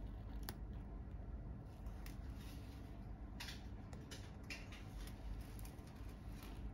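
Faint clicks of a metal needle holder and soft rustles of suture thread being drawn through a practice suturing model. There is a sharp click about half a second in and short rustles around three and four and a half seconds in.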